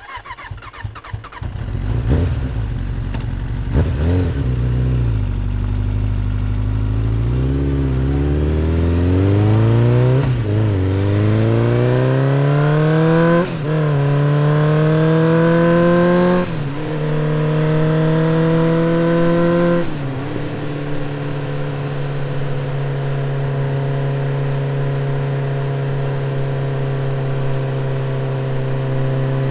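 Motorcycle engine accelerating up through the gears: the pitch climbs, drops briefly at each of five gear changes, and climbs again. In the last third it settles into a steady cruising drone.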